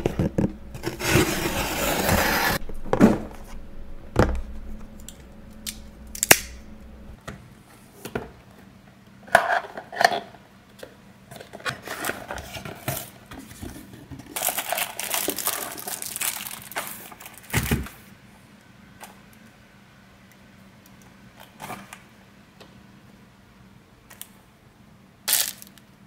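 Unboxing noises: a knife slicing the packing tape on a cardboard shipping box with a rasping sound, then the rustle of cardboard and plastic packaging being opened and handled, among scattered clicks and knocks as items are set down on the desk.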